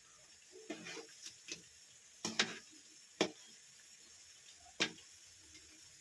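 Kitchen utensils clinking and knocking: a scattered series of short, sharp taps, the loudest about two and three seconds in.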